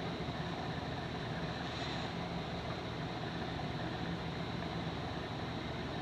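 Steady background room noise, a low hum with an even hiss and no distinct event.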